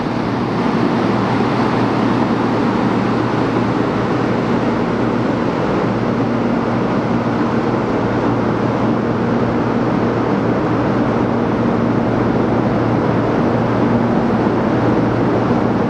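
Steady, loud running noise of a vehicle: an even rush with a low hum underneath.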